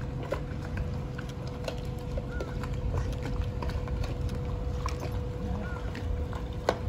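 A Metal Shark fireboat's engines running at slow, idling speed as the boat manoeuvres: a steady low rumble with a steady hum, mixed with many light clicks and knocks and a short chirp heard twice.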